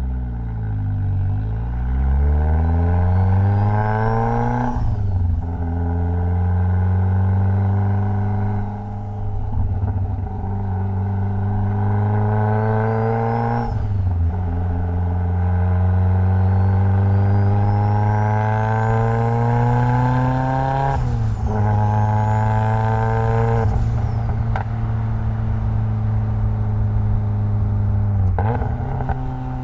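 Mitsubishi Lancer Evolution X's turbocharged 2.0-litre inline-four accelerating through the gears. The engine note climbs steadily, then drops sharply at each of about five gear changes. A thin high whine rises with the revs.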